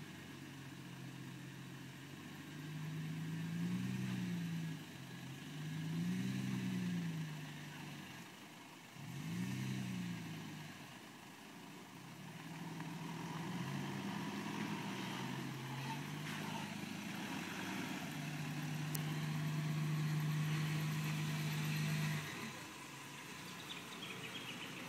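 Four-wheel-drive engine of a Toyota LandCruiser 80-series wagon revving up and easing off several times as it crawls under load through deep muddy ruts, then held at a steady higher pitch for about four seconds before dropping back near the end.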